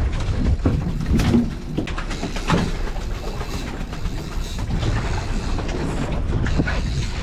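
Boat engine running steadily under way, with wind and water noise and a few sharp knocks around the first few seconds.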